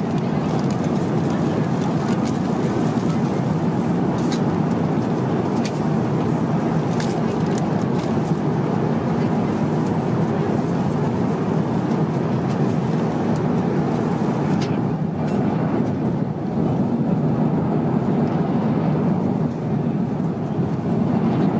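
Steady cabin noise of an Airbus A350-900 in flight: an even, low rush of air and engines. A few faint light clicks from meal-tray items being handled.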